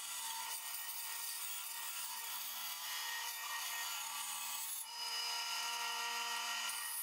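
Bandsaw blade cutting through a spruce block: a steady rasping hiss over a faint motor hum, briefly dipping about five seconds in.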